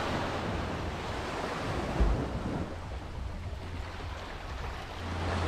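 Surf washing onto a beach, with wind rumbling on the microphone and a brief low gust thump about two seconds in.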